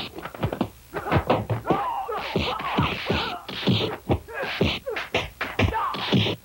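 Rapid punch and kick impact sound effects from a staged fight, a quick run of thwacks and thuds, mixed with fighters' yells and grunts.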